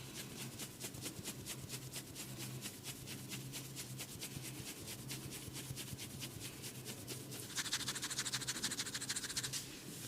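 Rapid, rhythmic scratching on a man's scalp and hair during a head massage, about seven strokes a second, getting louder and denser for the last two seconds or so.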